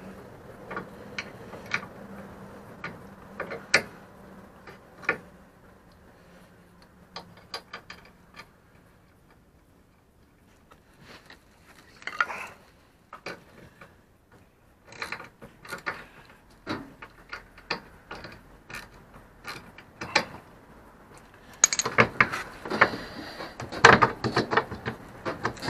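Scattered metallic clicks, knocks and clatter of a new sliding-door roller unit being handled and worked into the lower door track of a Renault Trafic / Vauxhall Vivaro van. The clatter gets busier and louder near the end as the roller goes into the track.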